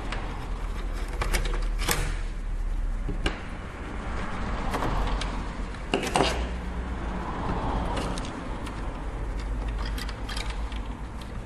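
Sharp clicks and light metallic ticks of small screws and a screwdriver being handled against a PlayStation 3 casing during disassembly, over a steady low hum.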